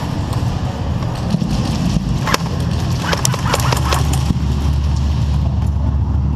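Steady low rumble of a body-worn camera on a moving airsoft player, with a few sharp snaps of airsoft gunfire a little over two seconds in and again around three to four seconds in.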